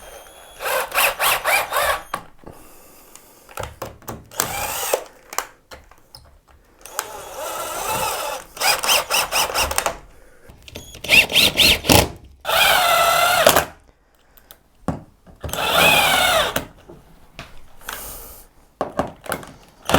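Power drill-driver driving screws through the door hinges into a wooden door frame. It runs in about eight short bursts, and the pitch rises and falls as the motor speeds up and slows.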